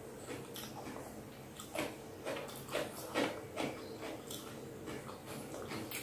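Soft, irregular sticky clicks and squishes from a cooked purple sweet potato's halves being pulled apart and pressed close to the microphone, over a faint steady hum.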